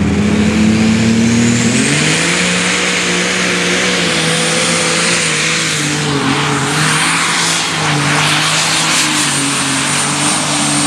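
An Open Super Stock pulling tractor's turbocharged diesel engine runs flat out through a pull. A high whistle climbs over the first second or so and then holds. The engine note steps up about two seconds in and stays high, wavering slightly.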